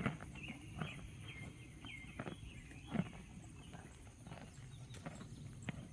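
A horse chewing a large carrot: irregular crisp crunches, the loudest about three seconds in.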